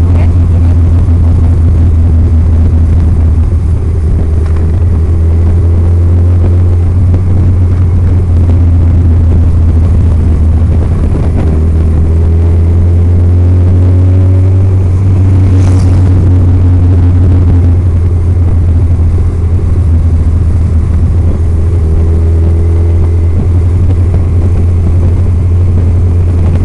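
Motorcycle riding at road speed, heard from an on-bike camera: a steady, loud low rumble of wind on the microphone, with engine notes rising and falling through the bends. A single short click about sixteen seconds in.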